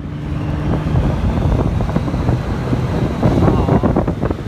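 Heavy wind buffeting the phone microphone as an inflatable banana boat is towed fast over snow and ice, with a low rumble underneath.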